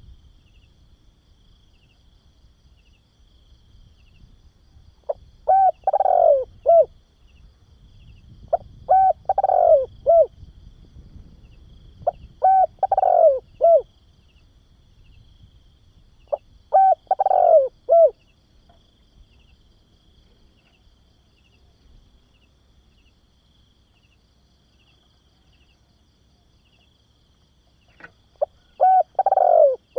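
Spotted dove cooing in phrases of a few short coos and one longer falling coo. Four phrases come about four seconds apart, then a long pause and a fifth near the end.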